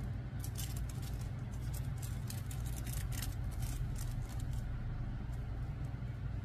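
Thin gold hot-stamping foil crinkling as it is handled by hand: a quick run of crisp rustles for about four seconds, stopping near the end. Under it runs a steady low hum.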